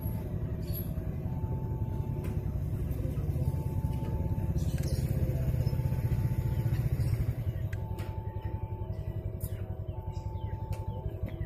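Railway level-crossing warning alarm sounding a repeating two-note electronic tone, each note about a second long. Under it is a low rumble that swells, then eases off about seven seconds in.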